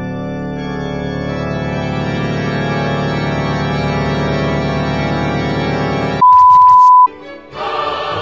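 Background music: a long held organ-like chord that slowly swells, cut off about six seconds in by a loud, steady electronic beep on a single pitch lasting under a second. Different music starts near the end.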